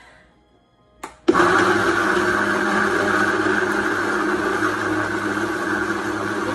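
Countertop blender switched on about a second in, just after a short click, then running steadily as it blends an açaí, banana and pineapple mix with a splash of coconut water.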